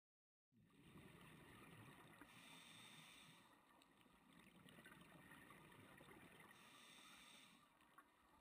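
Faint muffled underwater noise from scuba diving: bubbling with a hiss that swells and fades in slow cycles a few seconds apart, typical of a diver's breathing and exhaled bubbles. It starts about half a second in and cuts off abruptly at the end.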